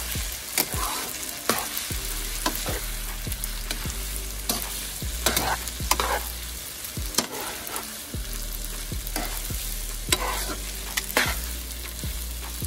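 Garlic noodles sizzling in a hot pan while being stirred and tossed, with a utensil making irregular knocks and scrapes against the pan.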